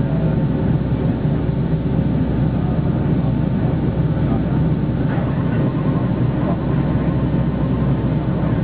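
Steady cabin roar of a Boeing 757-200 in its climb after takeoff, heard inside the cabin: low engine and airflow noise without a break.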